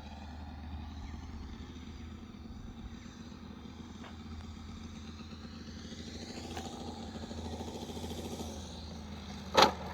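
Saito FG-60R3 three-cylinder four-stroke radial petrol engine of a large RC model plane running steadily at low throttle, its pitch rising a little and then falling back. A sudden loud thump comes near the end.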